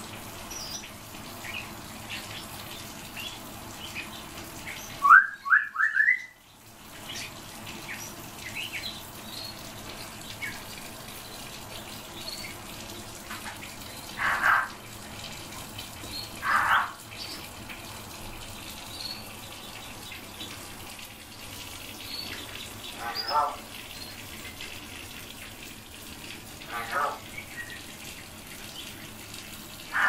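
Caged songbirds calling: scattered short call notes and faint high chirps, with a quick run of three rising notes about five seconds in, over a steady background hiss.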